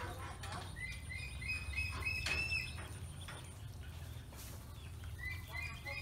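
Pekin ducklings peeping: quick runs of short high peeps, one run starting about a second in and another near the end.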